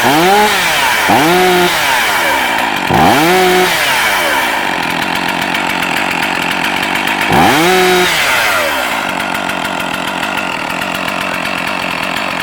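Stihl MS460 chainsaw's two-stroke engine running, revved in four quick throttle blips that rise and fall in pitch, then settling to a steady idle near the end.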